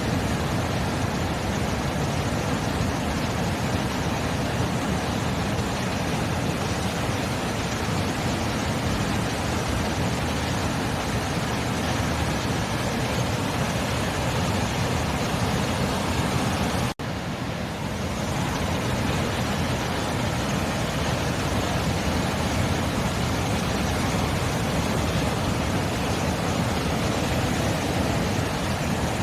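Steady rush of sea surf, a continuous even wash of noise, with a split-second dropout about seventeen seconds in.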